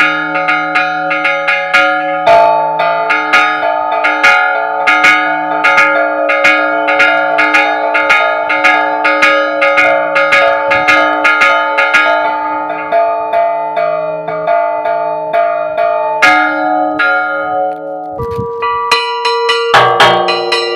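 Bronze church bells chimed by hand (repique): the bells hang still while the ringer pulls ropes tied to their clappers, striking them in a quick, even run of strokes that ring on over one another. About eighteen seconds in the pattern breaks and other bells take over, louder.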